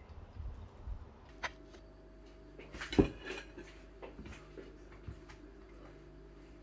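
Light knocks and clinks of a knife and a ceramic plate being handled while a whole fish is stuffed, the loudest knock about three seconds in.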